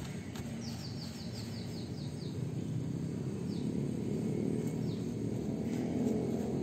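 Paintbrush spreading and dabbing liquid waterproof coating over fiberglass mat on a metal roof, a low scrubbing noise that grows louder about halfway through. A bird calls a quick run of high descending chirps near the start and a few single chirps later.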